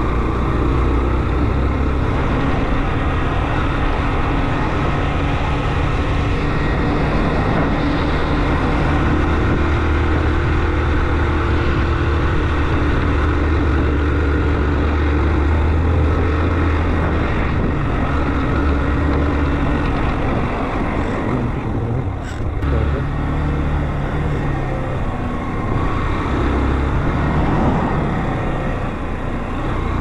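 Motorcycle being ridden at steady speed: engine running with a steady low drone under a dense rush of road and wind noise. The noise dips briefly about two-thirds of the way through.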